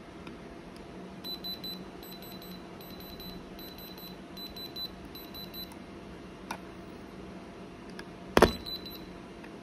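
High-pitched electronic beeping in quick repeated groups for about four seconds, then a single sharp knock near the end, over a steady low hum.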